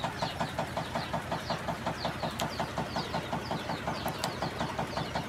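Steady, fast, evenly pulsing mechanical sound, of the kind a small engine makes idling.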